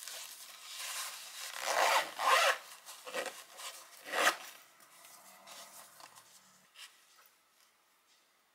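A foil-lined canvas insulated bag being closed: the foil lining rustles as the lid is folded down and a zipper is pulled shut in several short strokes, loudest about two and four seconds in, then fainter handling.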